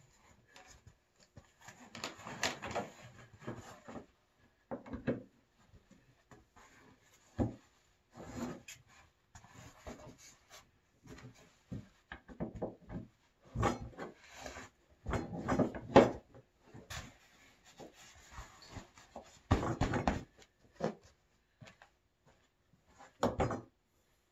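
Handling noise from assembling a plastic pulk sled: the seat's tube frame and fittings knocking, clicking and scraping against the hard plastic shell, with fabric rubbing, in irregular bursts with a few sharper knocks.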